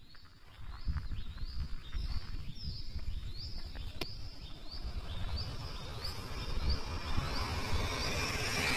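A bird calling a short falling note over and over, about two a second, over a low rumble. Near the end a rising hiss builds as a vehicle approaches.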